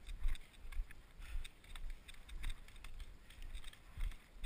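Irregular crackling and rustling with dull low bumps about every half second to second, typical of someone walking through brush with the camera and gear jostling.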